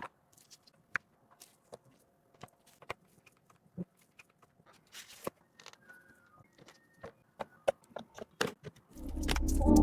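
Scattered sharp clicks and taps of computer parts being handled and fitted together, irregular and one at a time. Loud electronic music with a heavy bass comes in near the end.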